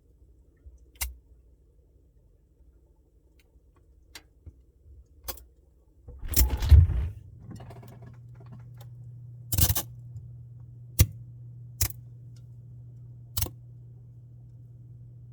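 Samsung Bespoke refrigerator making sharp clicks and ticks; about six seconds in there is a loud low thump and rattle, and a steady low hum starts and carries on, as of the compressor starting. More sharp clicks sound over the hum.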